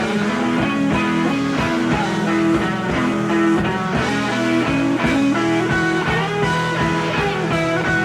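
Rock music with prominent guitar playing steadily, a soundtrack laid over the footage.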